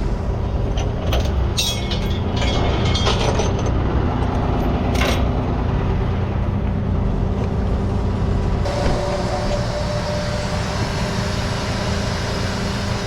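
Tow truck's engine idling steadily, with a few sharp metallic clanks in the first five seconds as the wheel straps are released. About nine seconds in, a steady hiss joins the engine sound.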